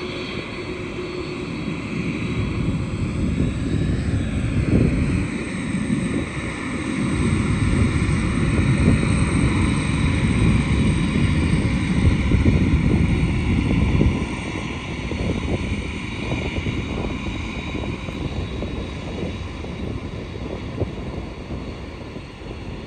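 UPS Boeing 767 freighter's twin jet engines running as the aircraft rolls past on the ground: a steady low rumble with a high engine whine that bends in pitch about four seconds in. It grows louder through the middle and eases off after about fourteen seconds.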